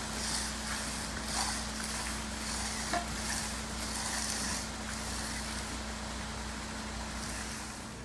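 Steel hand edger scraping along the edge of freshly poured concrete in repeated strokes, over the steady hum of a concrete mixer truck's engine running.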